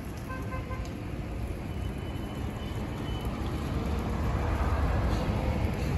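Low rumble of motor vehicle traffic, swelling louder over the second half.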